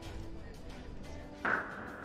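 A sudden loud blast about one and a half seconds in, then a lingering rush of noise: a secondary explosion of munitions cooking off in a struck weapons depot.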